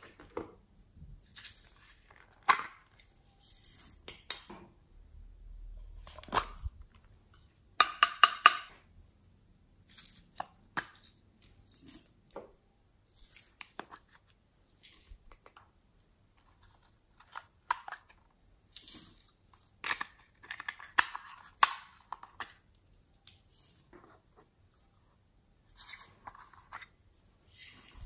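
Hands handling and opening small plastic toy containers and shaking out glitter and sprinkles over slime: an irregular run of short rustles, clicks and crackles with quiet gaps between.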